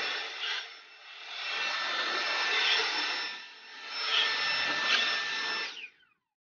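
Cordless battery leaf blower running in three bursts of about two seconds each, a rush of air with a steady motor whine. It is switched off near the end and its motor winds down.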